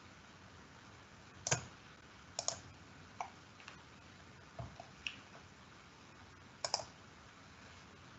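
Computer mouse clicking about eight times at irregular intervals, some clicks in quick pairs, over faint room hiss.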